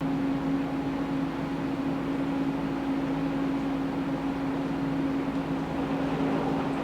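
Steady machine hum with a low drone and a hiss, starting suddenly and holding level, from operating-room surgical equipment.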